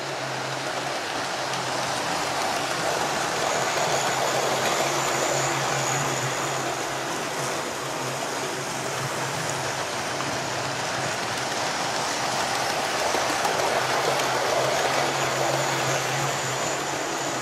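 Electric model train running on the layout's track: a steady rumble of wheels on rail over a low motor hum. It grows louder twice, about four seconds in and again near the end, as the train comes past close by.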